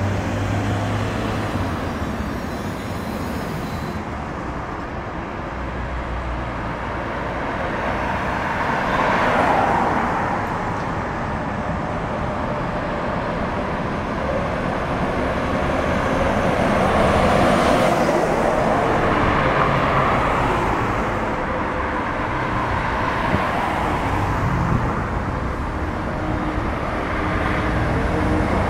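Street traffic and a Tatra T6A5 tram pulling into a stop, standing, and pulling away past close by. The overall noise swells twice as vehicles and the tram move.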